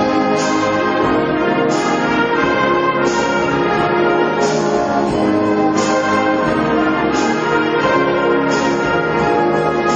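School concert band playing a sustained brass-led passage, with a bright ringing percussion hit landing about every one and a half seconds.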